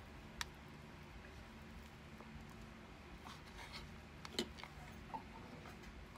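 Quiet room hum with a few sharp small clicks: one about half a second in, a cluster of fainter ticks around three to four seconds, and another sharp click about four and a half seconds in.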